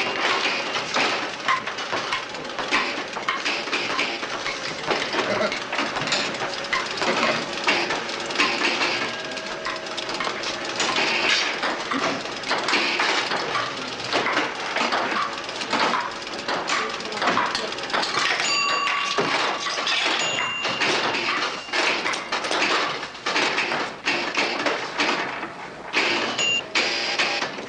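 Busy room ambience: a steady wash of indistinct voices and clatter, with a few short high pings about two-thirds of the way through and again near the end.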